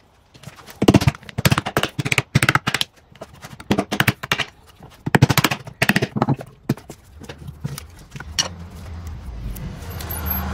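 Hammer knocks on a wooden strip to drive the frame loose from a cured epoxy casting, coming in irregular groups of sharp raps. A low steady hum builds up near the end.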